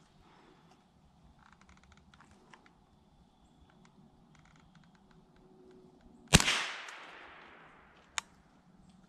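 A single rifle shot about six seconds in: one sharp crack followed by about a second of echo dying away. Nearly two seconds later comes one short, sharp click, and before the shot there is only faint rustling.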